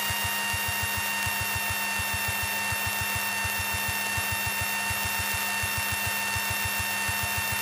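Piper Tomahawk's four-cylinder Lycoming engine and propeller in the cockpit during the approach: a steady, rapid low pulsing drone with a constant high whine over it.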